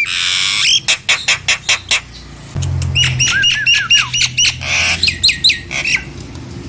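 Nias hill myna calling: a harsh squawk, a quick run of sharp clicking notes, then a string of short whistled notes that slur downward, broken by another harsh rasp about five seconds in.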